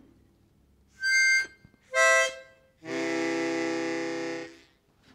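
Harmonica played: two short notes, then a longer held chord.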